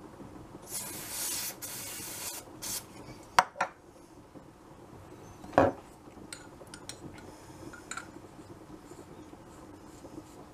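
An aerosol lubricant spray hisses in two short bursts and a brief third puff, coating the regulator before it goes into the air cylinder. A few sharp clicks follow, then a single knock, the loudest sound, about five and a half seconds in, and light ticks of metal parts being handled.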